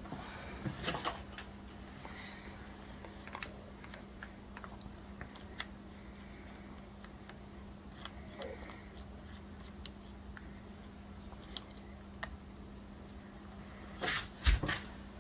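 Soft scraping and scattered light clicks of silicone spatulas working thick cake batter off a stand mixer's flat beater and around its steel bowl, over a steady low hum. A few louder knocks come near the end.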